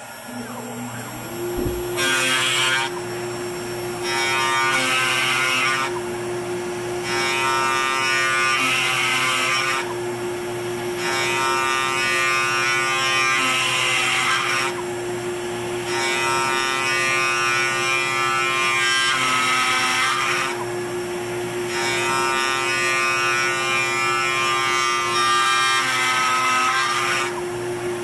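AVID CNC router spindle turning a half-inch brad point twist bit at 500 RPM and peck drilling deep into a wooden 2x4. The spindle's steady whine comes up about a second in. The bit then cuts in repeated pecks of a couple of seconds each, with quieter pauses between them as it retracts to clear chips. The cutting rattles from the bit's runout, which the owner puts down mainly to its turned-down shank not being concentric with the bit.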